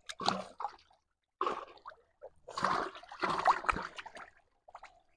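Shallow muddy water sloshing and splashing in irregular bursts as hands grope through the mud for fish.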